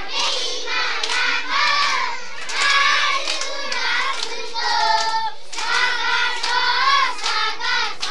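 A group of children singing together in chorus, with hands clapping along.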